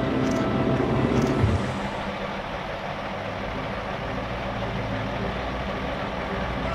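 Heavy pulling-tractor engine running, louder for about the first second and a half, then dropping back to a steady idle.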